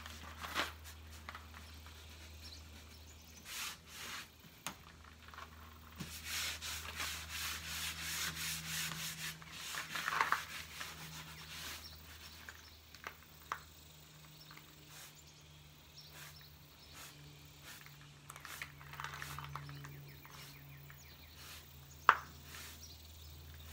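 Cloth rag rubbing glaze over the painted wood of a dresser in runs of quick wiping strokes. There is a sharp knock near the end.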